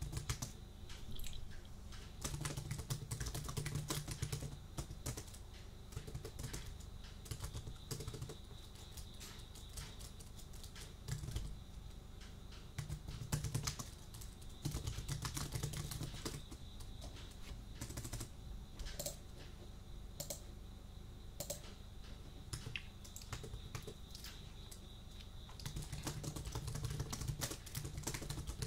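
Computer keyboard typing up close, in bursts of rapid keystrokes separated by stretches of slower, scattered key presses.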